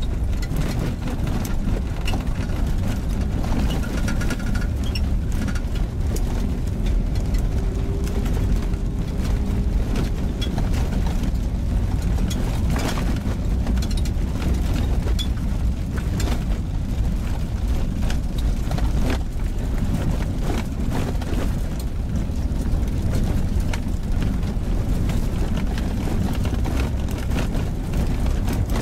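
Car driving slowly over an unpaved gravel road, heard from inside the cabin: a steady low rumble of engine and tyres, with frequent small clicks and knocks from the rough surface.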